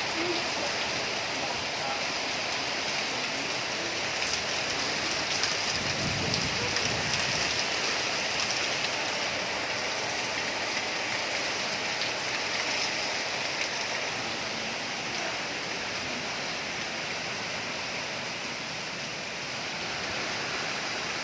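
Heavy rain pouring down in strong wind, a steady dense hiss, with a brief low rumble about six seconds in.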